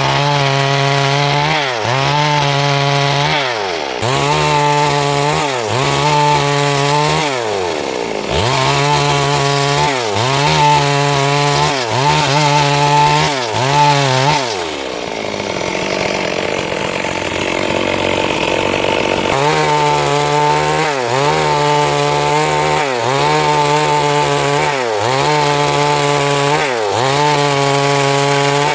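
Stihl MS 382 two-stroke chainsaw cutting wood, its engine pitch dipping and recovering in a steady rhythm about every second and a half as the bar works through the cut. For a few seconds past the middle the clear engine note gives way to a rougher, noisier cutting sound.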